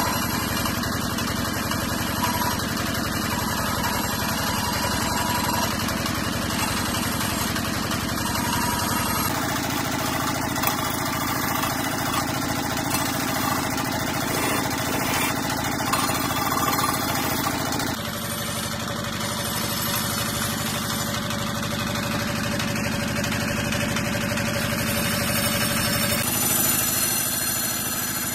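Wood lathe running steadily while a hand-held chisel cuts into a large spinning wooden blank: a continuous motor hum under the scrape of the cut. The sound shifts abruptly a few times, where the footage is cut.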